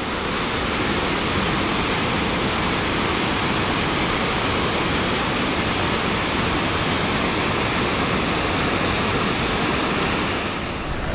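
A waterfall pouring over a rock ledge into a pool, a steady rushing of water.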